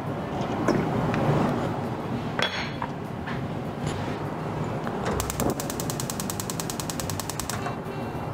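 Annatto seeds and oil sizzling in a wok over the flame, a steady grainy hiss with a few small clicks and pops. About five seconds in, a fast, even rattle of clicks lasts for about two and a half seconds.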